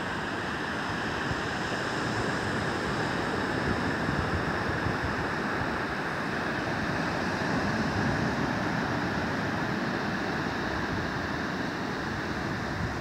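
Ocean surf washing onto a flat sandy beach: a steady, even rush of breaking waves with no separate crashes standing out.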